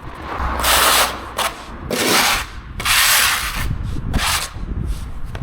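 Repeated rough brushing strokes across a hard surface, about four long sweeps, each a burst of rasping hiss.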